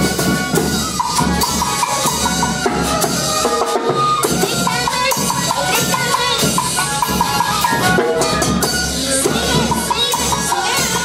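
Andean roncadora ensemble playing dance music: three-hole pincullo flutes carry a high melody of quick repeated notes over the steady beat of the roncadora drums.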